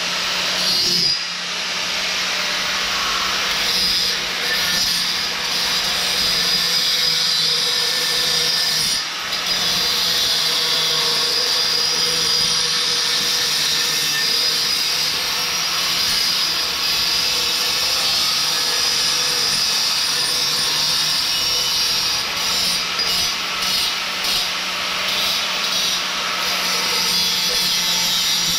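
Angle grinder running steadily against a mandrel-bent metal exhaust tube, cutting and grinding the pipe. It eases off briefly about a second in and again around nine seconds in, with a few short breaks near the end.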